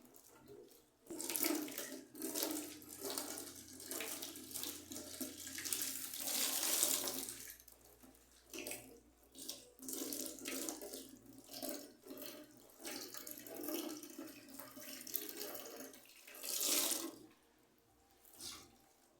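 Water from a tap running and splashing in a sink, rising and falling in uneven spurts as the flow hits and is broken up, stopping near the end.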